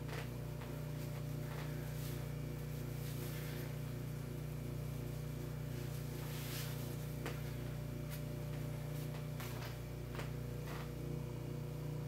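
Steady low hum with a faint, even pulsing in it, and a few soft clicks scattered through.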